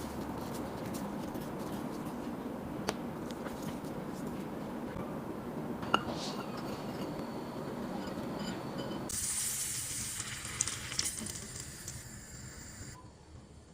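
Chicken lollipops frying in hot oil: a steady sizzle with a couple of sharp clicks. About two-thirds of the way through it turns to a brighter, hissier sizzle that fades away near the end.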